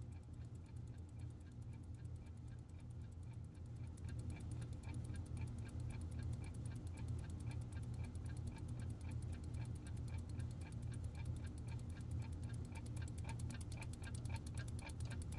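Clocks ticking: several overlapping ticks a second that grow louder and denser about four seconds in, over a steady low hum.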